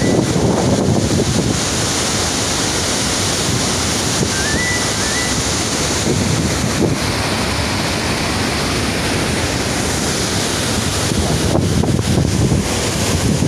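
Floodwater rushing out through the open spillway gates of a large concrete dam: a steady rushing of water, with wind buffeting the microphone.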